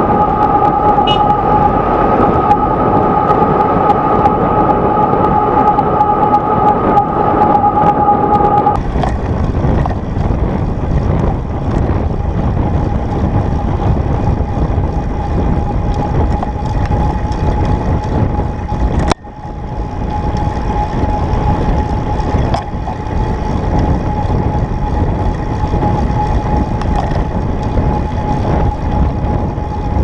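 Wind buffeting and traffic noise on a camera riding on a moving bicycle, with a steady two-note tone held until about nine seconds in and a fainter single tone after it. The sound drops out abruptly for a moment about nineteen seconds in.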